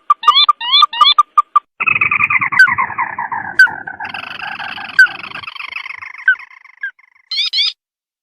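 Crake calls on a bird-lure recording. A fast series of short notes leads into a long chattering trill that falls in pitch, about two seconds in. A second, higher falling trill overlaps it about four seconds in and fades out near seven seconds, and a few quick rising whistles come near the end.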